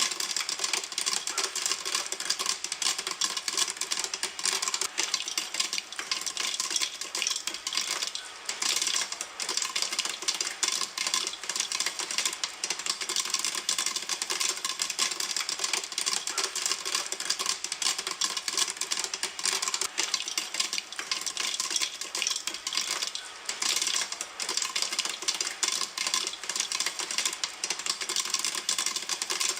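Popcorn kernels popping in a pan: a dense, rapid stream of sharp pops and crackles, briefly thinning about eight seconds in and again a little past twenty seconds.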